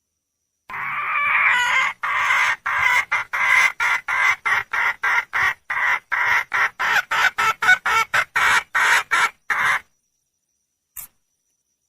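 Junglefowl hen calling, a call given by a hen seeking a male: one drawn-out call, then a long run of short clucks at about three a second that stops abruptly, with one brief click near the end.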